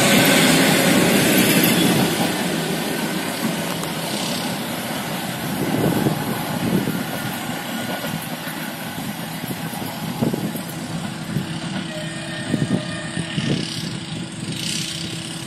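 ЭП2Д electric multiple unit departing: the loud rumble and rattle of its wheels and running gear as it passes close, slowly fading as it pulls away, with a few knocks from the track.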